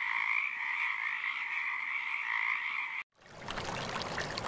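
Frog chorus, many frogs calling together in a steady sound that cuts off suddenly about three seconds in. After a short gap, a running-water sound begins.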